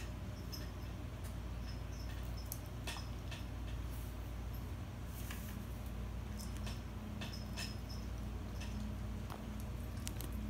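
Puppy pawing and mouthing a piece of bread on a tile floor: scattered faint clicks and taps at irregular intervals over a steady low room hum.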